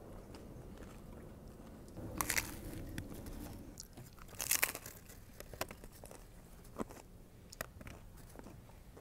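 Crunchy hard corn taco shells being bitten and chewed, with two louder crunching bites about two seconds and four and a half seconds in, then softer, scattered crunches while chewing.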